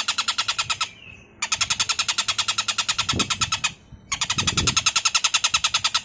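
Oriental dollarbird (tengkek buto) giving its harsh, rasping chatter: a fast run of identical notes, about ten a second, that breaks off twice for about half a second and resumes.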